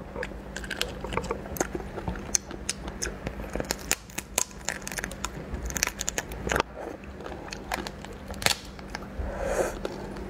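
Shell of a raw slipper lobster being bitten and pulled apart by hand: a run of irregular sharp cracks, crunches and crackles, with close-up chewing and sucking.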